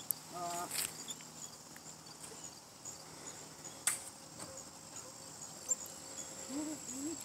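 Insects chirping: a steady high-pitched trill with regular pulses. A few sharp clicks cut in, the sharpest about four seconds in.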